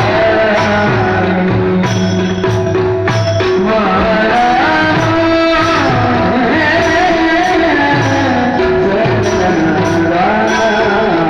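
Marathi devotional kirtan music: a sung melody with gliding notes over steady held accompanying tones and regular hand-drum strokes.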